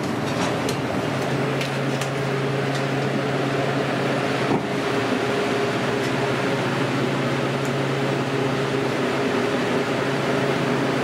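Steady hum of a refrigerated cabinet's cooling fan and motor, with a stronger low tone coming in about a second in. A few light clicks of metal hooks on the rack can be heard over it.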